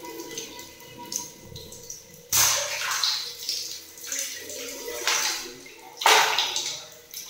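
Water splashing and sloshing as a long water-filled balloon is dragged across a wet tiled floor, with two louder splashy rushes, one about two seconds in and one about six seconds in.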